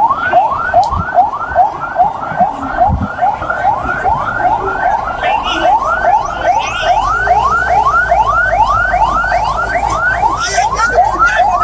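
Police vehicle siren on a fast yelp: a rising whoop repeated about three times a second.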